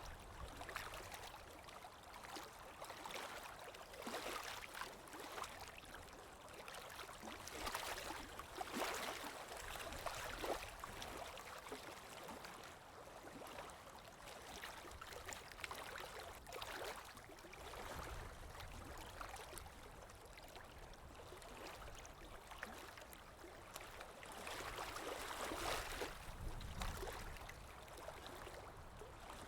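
Running water flowing steadily, a continuous rush with small gurgles and splashes, swelling a little louder several times and easing off again.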